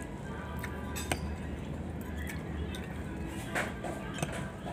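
Metal fork and spoon clinking against a plate while eating, a few sharp clinks spread out, over a steady low rumble.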